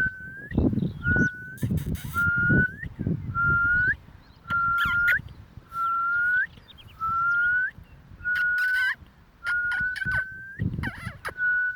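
A squeaky toy squeaked about a dozen times, roughly once a second: each squeak is a high, steady note that bends upward at its end, with rustling and knocking between squeaks.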